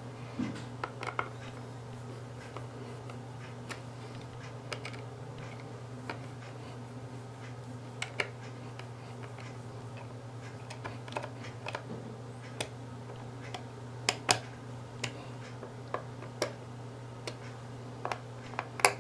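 Small screwdriver tightening screws into the plastic case of an Android TV box: scattered light clicks and ticks of the tool and screws against the plastic, over a steady low hum.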